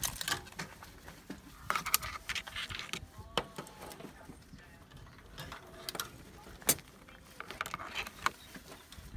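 Metal tongs clinking against a metal cooking pot and cooked crabs being set down on a plastic plate: scattered sharp clicks and knocks, about half a dozen, with quiet handling noise between them.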